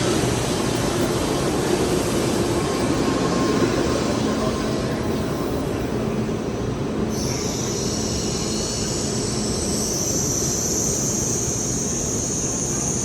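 Shinkansen bullet train running, a steady loud rushing rail noise. About halfway through, a high hiss comes in and holds on top of it.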